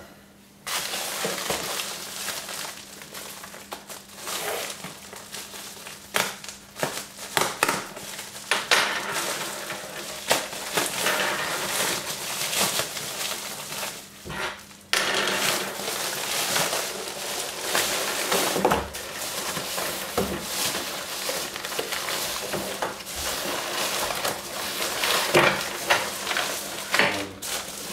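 A parcel of parts being opened and rummaged through by hand: continuous rustling and crinkling of packaging, with frequent small clicks and knocks.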